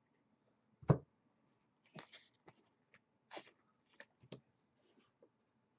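A single thump about a second in, then several short rustles and clicks: cards and packaging being handled and set down on a table.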